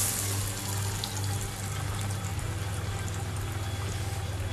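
Lentil vadas deep-frying in hot oil in a kadai, the oil sizzling with a steady hiss over a low hum.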